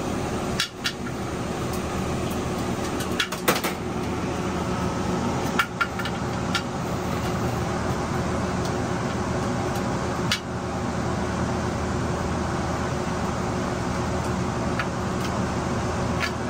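Steady hum of a laminar flow hood's fan, with a few scattered metal clicks and knocks as a pressure cooker is unclamped and opened.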